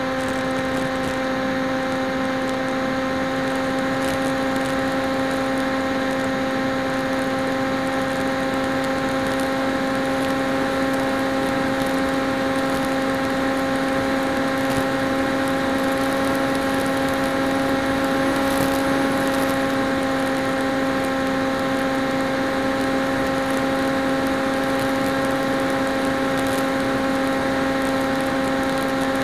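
Electric motor and propeller of a PopWing foam flying wing running at steady cruise throttle, picked up by the onboard camera: a steady hum with a stack of higher whining overtones over a hiss of airflow noise.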